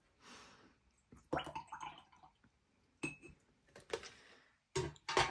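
Metal watercolour paint tins and palettes being picked up, moved and set down on a table: a brief rustle, then a run of clinks and knocks, the loudest near the end.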